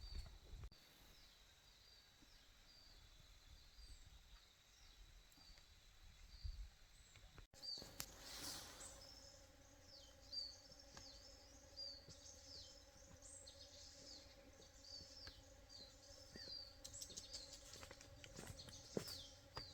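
A bird's short chirps, repeated about twice a second, faint. A few seconds in, a low steady hum and scattered clicks join them.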